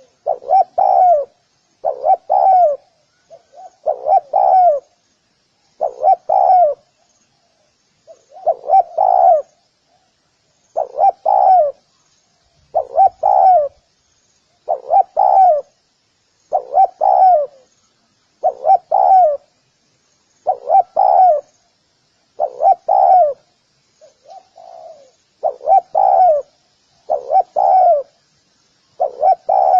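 Spotted dove cooing: the same short phrase of a few soft, falling coos, repeated about every two seconds.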